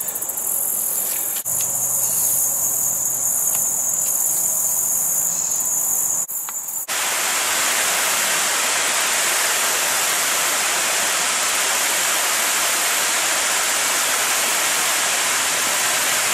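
Insects trilling in a steady high-pitched drone over a quiet waterside background. About seven seconds in, this gives way to the loud, even rush of flowing river water, with the insect drone still faintly above it.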